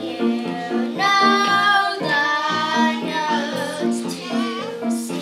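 A young girl singing a show tune over instrumental accompaniment, holding some notes for about a second.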